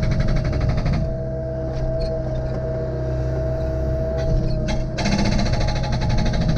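Excavator's diesel engine running steadily under a high, steady hydraulic whine, with spells of fast rattling at the start and again from about five seconds in, as it works at splitting firewood.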